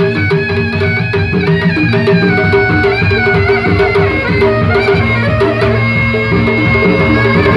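Sundanese traditional music: quick hand-drum strokes under a held, wavering melody.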